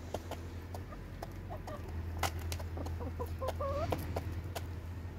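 Chickens pecking grain from a hand-held feed tray, their beaks making quick sharp taps, with a few short clucks midway.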